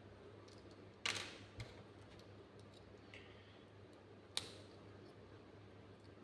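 A few small sharp plastic clicks and taps over a faint steady hum, from Lego minifigure parts being handled and snapped together; the loudest click comes about a second in, another about four and a half seconds in.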